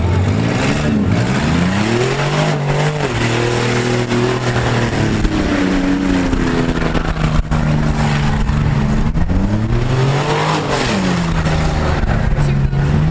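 Compact demolition derby car's engine revving, climbing and dropping in pitch about a second in and again around ten seconds in, holding a steady high pitch in between.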